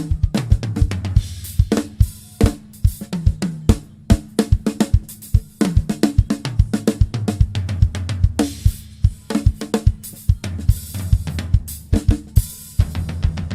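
A drum kit played at a quick pace: kick, snare and tom strokes several times a second under cymbal and hi-hat wash, with tom fills whose pitch drops after each stroke.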